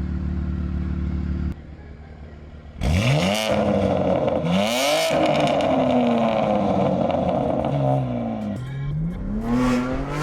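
BMW G80 M3's twin-turbo inline-six, on its newly fitted exhaust, idles steadily, then after a short break revs hard and accelerates. The pitch climbs and drops several times, as through gear changes. The exhaust note is loud and aggressive, "nasty".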